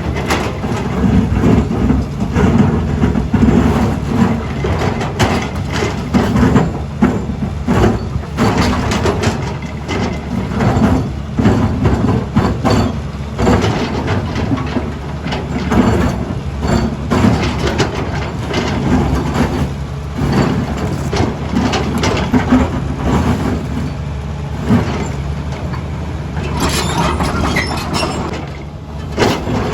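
Cat 320D excavator's diesel engine running steadily under load, with frequent sharp knocks and scraping as the bucket teeth dig into rock; a harsher scraping stretch comes near the end.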